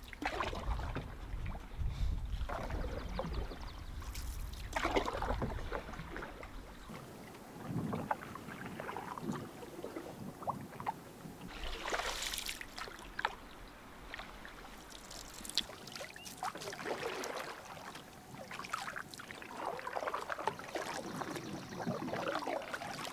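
Wooden canoe paddles dipping and pulling through calm water, a swish and light splash every few seconds. Wind rumbles on the microphone for the first several seconds.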